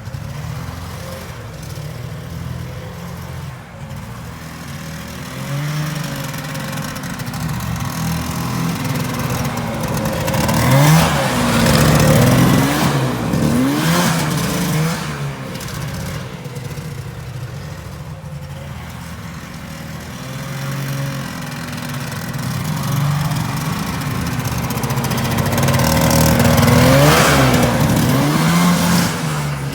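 1974 John Deere JDX8 snowmobile's two-stroke engine running and being revved several times, with rising and falling pitch and the loudest revs around the middle and near the end. The engine has an exhaust leak.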